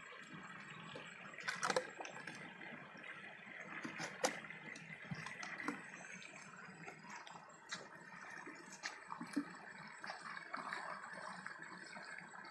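Steady rush of a small stream running over rock, with a few sharp clicks and knocks, the loudest near the start and about four seconds in.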